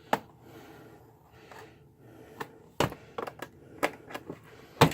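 Sharp plastic clicks and snaps as the Chromebook's bottom case panel is pried up by fingernails, its clips popping loose. There is one click at the start, a quick run of them around three seconds in, and the loudest snap near the end.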